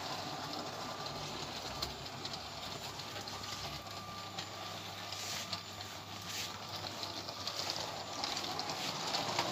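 Lego train running around its plastic track, a steady motor whine with scattered light clicks from the wheels and track.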